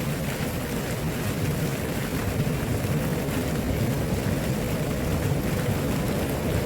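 Flowing water rushing steadily, a constant deep wash with no breaks.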